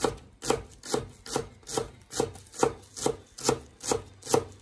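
Chinese cleaver slicing green onions into small rounds on a wooden cutting board: each cut ends in a sharp knock of the blade on the board, in a steady rhythm of about three cuts a second.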